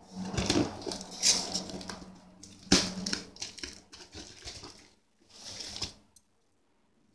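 Cardboard shipping box being handled and cut open with scissors: irregular scraping and rustling of cardboard and packing tape, with one sharp knock a little under three seconds in.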